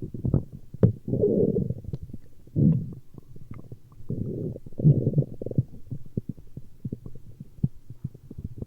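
A person's stomach growling: several irregular low rumbles, the loudest about a second in and again around five seconds in, with short pops and clicks between them.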